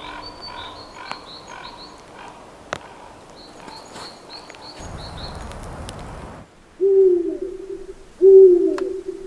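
A bird sings a quick run of short high repeated notes. Then two loud, low hooting calls follow, each about a second long and a little over a second apart.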